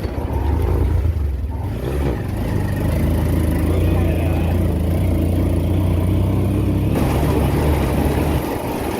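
Motorcycle engine running hard under load, climbing a steep track, then easing off a little over eight seconds in.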